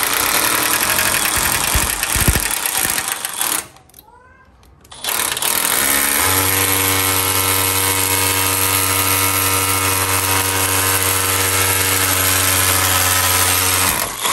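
Cordless drill boring through the back of a metal distribution-board box into the wall: a run of about three and a half seconds, a pause of about a second and a half, then a longer run of about nine seconds that settles into a steady buzzing tone.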